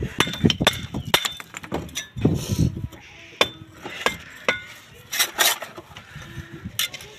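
Steel bricklaying trowel clinking and scraping against bricks and wet cement mortar: an irregular run of sharp taps and scrapes as mortar is spread and scooped and bricks are set in place.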